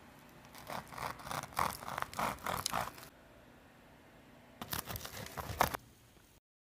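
Crusty toasted sourdough sandwich crackling and scraping as it is handled, in a run of short rasping scrapes over the first few seconds and a shorter run near the end.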